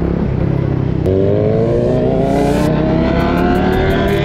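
Kawasaki Z900 inline-four engine pulling under way, then accelerating about a second in: a steadily rising engine note that climbs for about three seconds and drops near the end.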